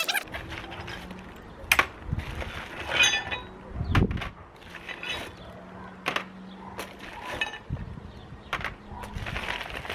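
Metal tools and parts clinking and knocking on a metal-topped work table, several sharp knocks spread through, amid the rustle of a plastic bubble-wrap parts bag.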